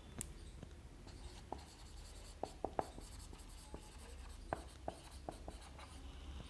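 Marker pen writing on paper: scattered short scratches and taps, with a cluster about two and a half seconds in and another around five seconds.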